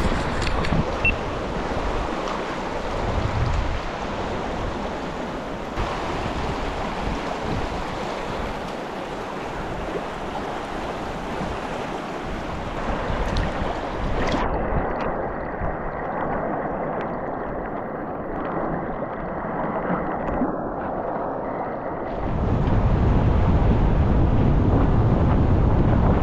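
Steady rush of flowing river water. Wind buffets the microphone over the last few seconds, and the sound gets louder then.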